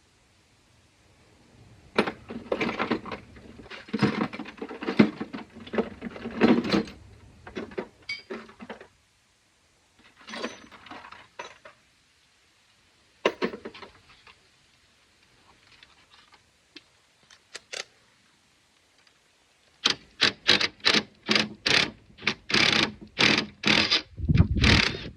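Metal hand tools and parts clinking and rattling in irregular clusters during work on the engine, then a run of quick even strokes, about three a second, near the end, like a wrench being worked back and forth on a bolt.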